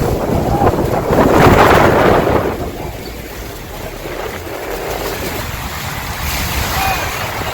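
Rushing water and wind buffeting the microphone aboard a tour boat near the base of a waterfall, a dense rush that swells loudest about a second or two in and then settles into a steadier roar.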